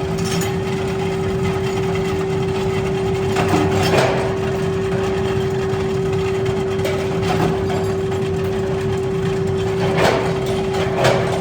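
Forging-shop machinery running steadily with a constant hum over a low rumble, and a few short knocks scattered through.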